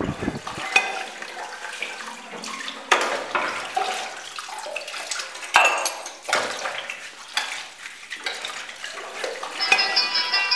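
Dishes being washed by hand: water pouring into a basin, with scrubbing and clinks of crockery. Near the end a mobile phone starts ringing with a steady electronic ringtone.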